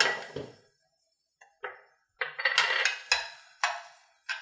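Metal tongs clinking against a stainless-steel sauté pan while tossing butternut squash noodles. A couple of clinks at the start, a short pause, then a quick run of sharp, ringing clinks through the second half.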